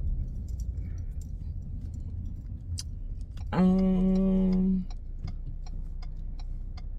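Low rumble of a car running, heard from inside the cabin, with scattered faint clicks. About halfway through, a steady single-pitched tone holds for a little over a second.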